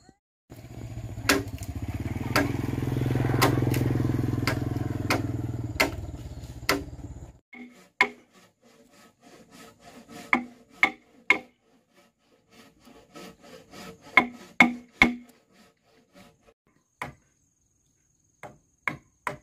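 Irregular sharp blows on wood, as in chopping or hammering timber. For the first seven seconds or so a motor hums under them, swelling and then fading before it stops abruptly.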